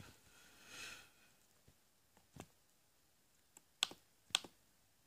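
Mostly quiet room with a faint breath about a second in, then a few short, sharp clicks at the computer in the second half, the loudest two near the end.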